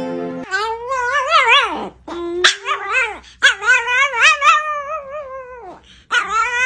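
Chihuahua howling: a run of long cries that waver up and down in pitch, with short breaks between them.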